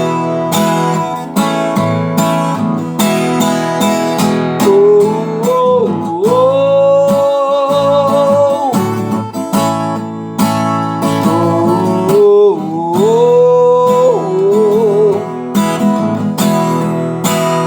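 Music: an instrumental break in a gospel worship song, with strummed acoustic guitar under a long held melody line that slides between notes and wavers.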